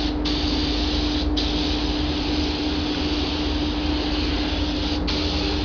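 Air-fed paint spray gun hissing steadily as paint is sprayed onto a car's lower bodywork, cutting out for a moment three times as the trigger is let go. A steady low hum runs underneath.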